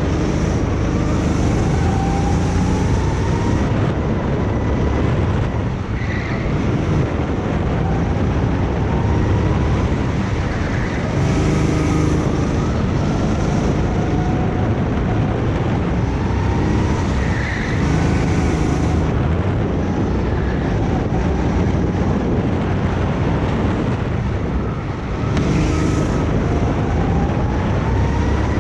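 Go-kart engine running through a lap: its pitch climbs in long rises and falls back several times as the kart slows for corners.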